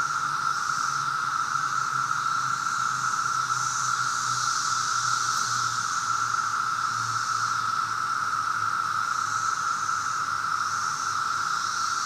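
Chorus of Brood II periodical cicadas: a steady, loud drone, with a higher hiss over it that swells and fades every second or two.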